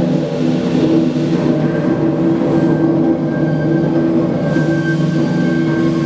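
The River Don Engine, a Davy Brothers three-cylinder single-expansion reversing steam engine, running under steam with a steady, even mechanical rumble and some sustained tones.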